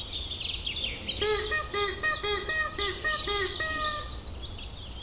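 Birds singing: many quick falling high chirps, joined about a second in by a run of about eight short pitched calls at roughly three a second, then fading to fainter chirping.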